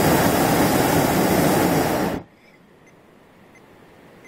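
Hot-air balloon's propane burner firing, a loud steady rush of noise that shuts off suddenly about two seconds in, leaving only a faint hiss.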